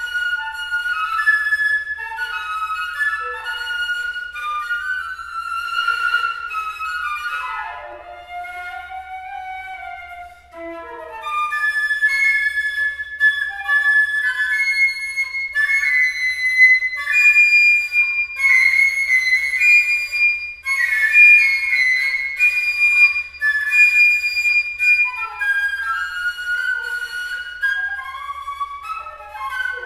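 Solo concert flute playing unaccompanied, with quick runs of notes. About a third of the way in it drops to a softer, lower phrase with a sliding pitch, then climbs to loud, high held notes in the second half.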